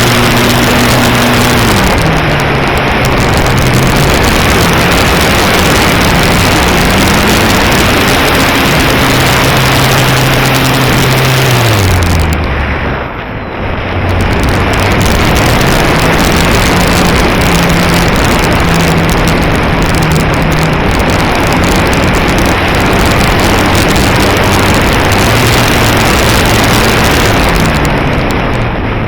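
A propeller motor's hum shifting up and down in pitch as the throttle changes, under heavy wind buffeting on the microphone. About halfway through the hum drops low and the sound dips briefly, as if the throttle is cut, then the motor comes back up.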